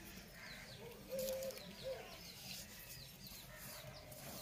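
A chicken clucking faintly in the background, two calls about a second in, with small birds chirping high and thin throughout.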